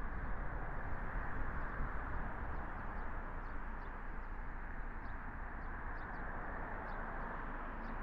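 Steady rumble and hiss of a car driving, with faint short bird chirps at times from about three seconds in.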